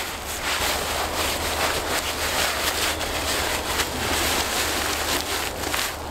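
Synthetic tarp rustling and crinkling as it is rolled up and folded by hand, with many small irregular crackles.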